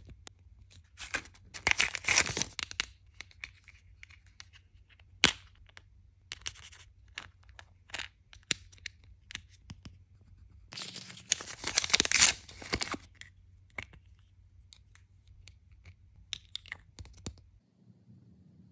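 Close-up handling of miniature toy food pieces and their small paper wrappers and cardboard boxes. It makes rustling and crinkling with many small clicks and taps. There are two louder stretches of rustling, one about a second in and another about eleven seconds in.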